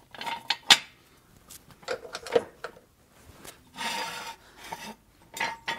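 Handling noise of a steel jack stand and a rubber hockey-puck adapter being fitted under a car: several sharp clicks and knocks, with a longer rubbing scrape about four seconds in.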